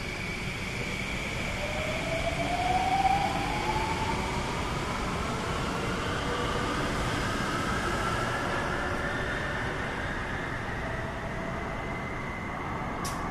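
Bombardier MOVIA C951 metro train running through a tunnel, heard from inside the car: steady rumble and rail noise with a whine that rises in pitch over several seconds. Another train passes close alongside, loudest about three seconds in.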